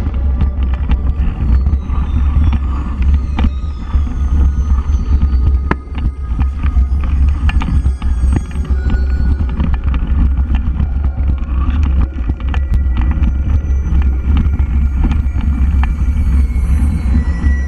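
Mountain bike rolling along a leaf-covered forest trail, heard from a camera mounted on the rider or bike: a heavy steady low rumble with frequent sharp clicks and rattles as the bike goes over roots and leaves.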